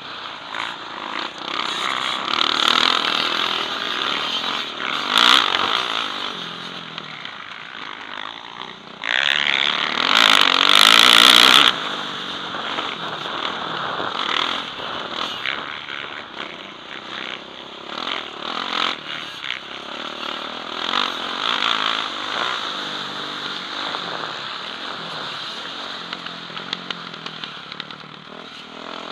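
Motocross bike engine under hard riding, heard from the rider's helmet camera, its revs rising and falling again and again as the bike is ridden round the track. Near the middle a loud rushing noise swamps it for about three seconds.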